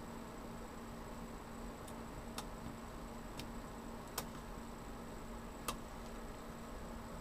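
Faint, scattered sharp plastic clicks, about five spread over several seconds, as the palm rest and touchpad cable of an HP G72 laptop are worked loose, over a steady low hum.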